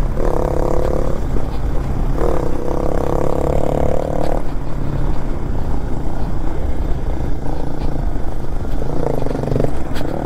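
Off-road motorcycle engine running under load, its note swelling in a few held bursts of throttle, twice in the first half and once near the end, over a steady low rumble.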